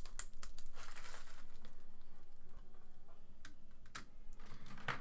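Protective plastic film being peeled off a laser-cut acrylic plate, crinkling and crackling as it comes away, easing off about halfway through; a few light clicks follow near the end.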